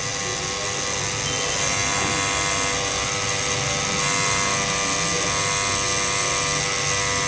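Electric tattoo machine buzzing steadily as its needle runs over the skin, lining the outline of a tattoo.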